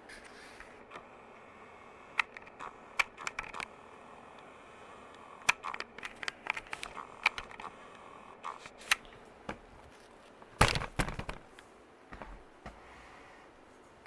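Harbor Breeze Troches ceiling fan running with a faint steady hum. Over it come a series of sharp clicks and pops, with a louder cluster of knocks about ten and a half seconds in.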